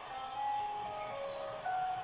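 Birds whistling: a string of clear, held notes at several different pitches, some overlapping.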